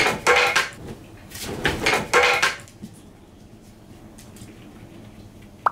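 Two bursts of quick knocking and scuffling, about a second apart, like hurried movement on a wooden floor, then quieter room sound; a short sharp tone right at the end.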